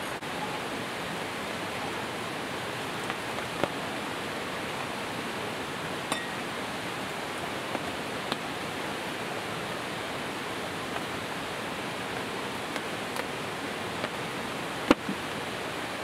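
Steady rush of a mountain stream. A few sharp clicks are scattered through it, the loudest near the end.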